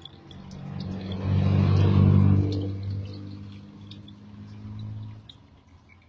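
Hyundai Atoz car engine running, swelling louder about a second in, then easing off and cutting out about five seconds in.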